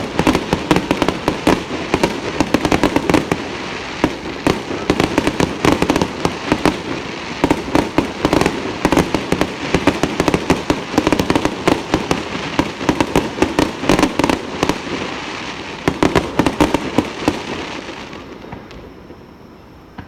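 Aerial fireworks bursting in a dense, rapid barrage of bangs and crackles that dies away near the end.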